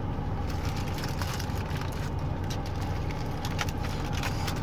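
Mouth sounds of eating fried chicken: scattered crisp crunches and smacks over a steady low hum.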